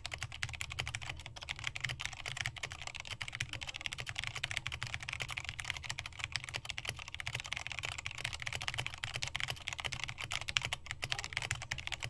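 Fast, continuous touch-typing at about 130 words a minute on a custom-built 60% mechanical keyboard with black switches and pudding keycaps: a dense, unbroken stream of key clacks over a steady low hum.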